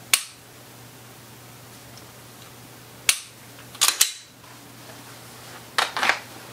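Dry-fire click of an unloaded pistol's trigger breaking just after the start, the loudest sound. About three to four seconds in the slide is racked back and let go with sharp metallic clicks to reset the trigger. A quick cluster of clicks follows near the end as the pistol goes back to the holster.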